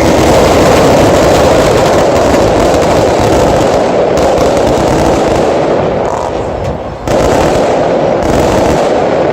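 Aerial fireworks barrage: a dense, continuous rattle of bangs and crackle. It eases briefly, then a fresh loud volley bursts in about seven seconds in.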